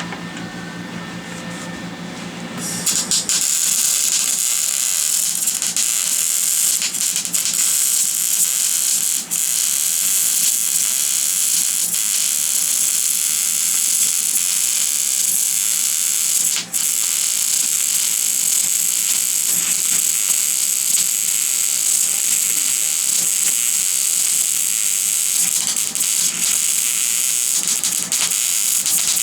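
Stick-welding arc crackling and hissing steadily, striking about three seconds in after a low steady hum, and dropping out briefly twice.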